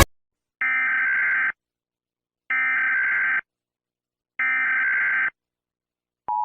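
Emergency Alert System SAME header: three identical bursts of warbling data tones, each about a second long and a second apart. About six seconds in, the steady two-tone EAS attention signal (853 and 960 Hz) starts.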